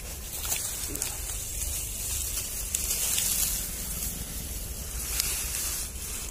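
Dry grass and straw rustling and crackling as it is pulled and spread by hand, over a low rumble.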